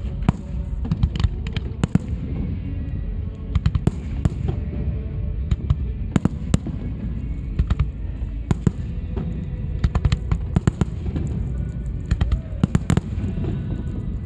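Fireworks display: a rapid, irregular series of sharp bangs and crackles over a continuous low rumble, with music playing alongside.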